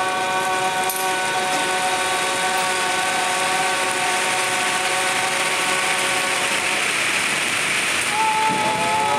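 Microplastic fragments sliding and rustling inside a giant rainstick-style tube as its mechanical arm tilts, a rain-like hiss that swells past the middle. Under it is a held drone of several steady tones, with a new tone gliding in near the end.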